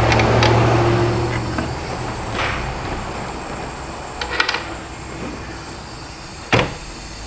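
Compressed air hissing through a cylinder leak-down tester into a 3.6L V6 cylinder with heavy blow-by, over a low hum that fades during the first couple of seconds. A few light clicks come a little past the middle, and there is one sharp knock near the end.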